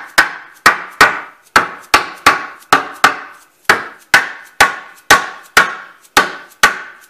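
A hammer striking wood in a steady run of blows, about two to three a second, each with a brief ringing tail.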